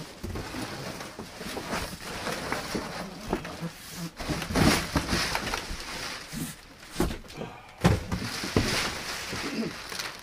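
Cardboard box scraping and rustling as it is turned over and lifted off a boat seat, with plastic wrapping crinkling and a few sharp knocks about seven and eight seconds in.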